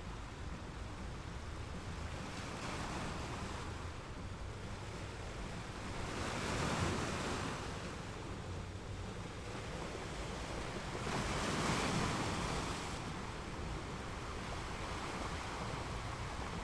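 Ocean waves washing onto a shore: a steady wash of surf with two waves breaking and rushing up, one about six seconds in and a louder one near twelve seconds.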